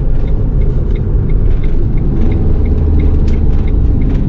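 Camper van engine and road noise, a steady low rumble while driving, with a faint ticking about three times a second.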